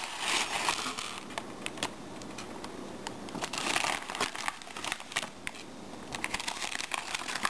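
Crinkling of packaging being handled, with many short sharp clicks, while the removed stainless steel surgical screws are handled.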